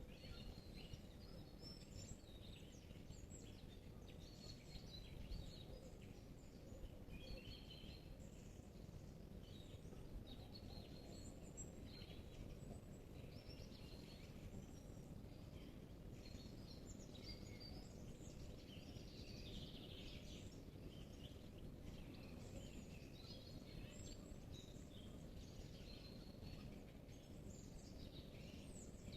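Faint dawn chorus of several songbirds in a spring forest: overlapping short chirps and trills, over a steady low rumble of background noise.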